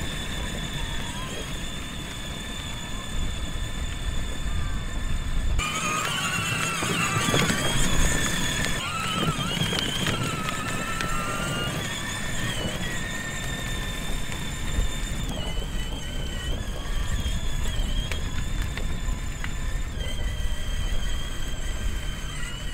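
Electric drive motors and gearboxes of a 24V ride-on toy Toyota Hilux whining at a high, steady pitch as it drives, the pitch shifting a few times, over the low rumble of its plastic wheels rolling on pavement.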